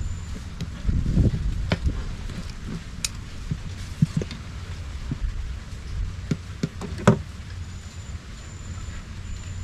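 Irregular short knocks and clicks, about nine of them, over a steady low rumble; the loudest come about a second in and about seven seconds in.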